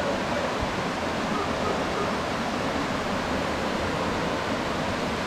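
Small waterfall cascading over rocks into a river pool: a steady rush of falling water.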